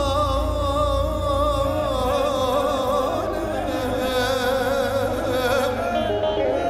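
Band music: a long held, wavering melody line over a steady bass, which eases off about two seconds in.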